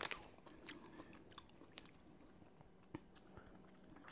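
Faint chewing of sour gummy worm candy, with a few soft scattered clicks of the mouth.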